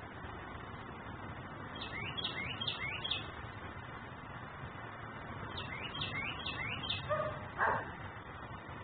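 A songbird calling in two quick runs of four or five high chirps, and a single dog bark about seven and a half seconds in, the loudest sound, over a steady background hiss.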